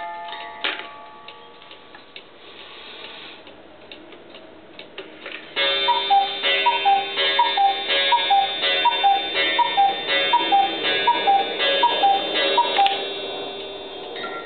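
Cuckoo clock ticking, then calling its two-note falling "cu-ckoo" about twelve times, evenly spaced, over a steady ringing tone. The count strikes the hour of twelve.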